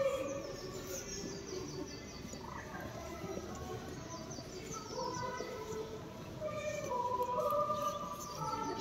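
Birds singing over the low murmur of a large outdoor crowd.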